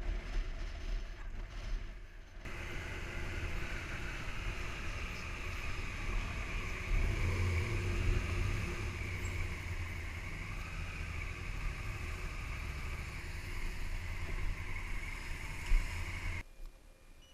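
Motorcycle engine running at low speed while riding onto a ferry's steel car deck, with a steady higher hiss joining a couple of seconds in. The sound stops suddenly near the end.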